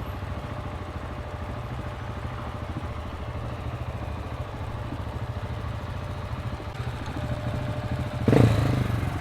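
KTM 690 SMC's single-cylinder engine running at low steady revs through an Akrapovic exhaust, with a low, pulsing note. It gets suddenly louder near the end.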